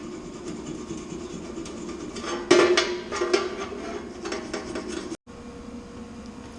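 Flux-core wire-feed welder striking an arc about two and a half seconds in: a loud burst of dense crackling for about a second, then short sputtering crackles, over a steady hum. These are test welds on fresh settings that still need dialing in.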